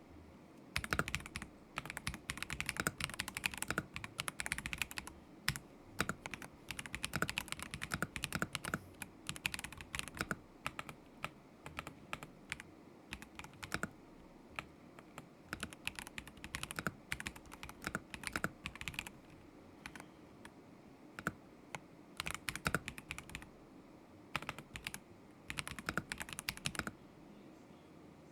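Typing on a KZZI K75 Pro mechanical keyboard with Moment linear switches: runs of quick keystrokes broken by short pauses, stopping about a second before the end.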